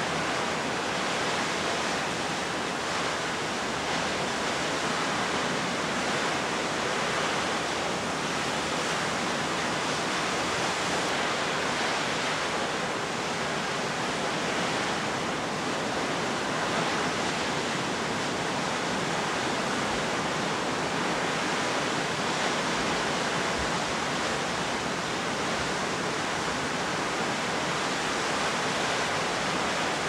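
Steady roar of a storm-driven rough sea breaking in a gale: an even, unbroken hiss in which no single wave crash stands out.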